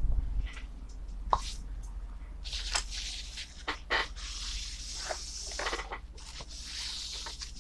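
Thin plastic bag rustling and crinkling in irregular bursts as it is handled, with a few light clicks and a steady low hum underneath.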